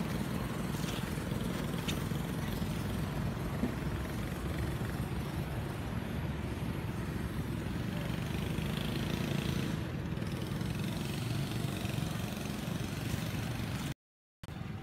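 Steady low rumbling outdoor background noise, cutting out abruptly for a moment near the end.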